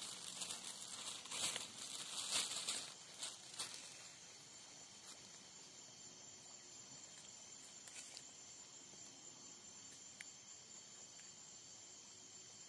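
Night insects, crickets, trilling steadily at several high pitches. Close rustling and crinkling handling noise dies away about four seconds in.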